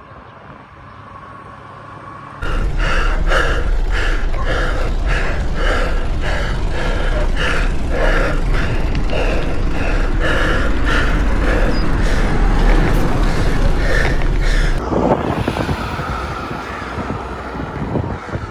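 Wind rumbling on the microphone of a camera riding along on a bicycle, starting about two seconds in, with a regular beat about twice a second over it; it eases off near the end.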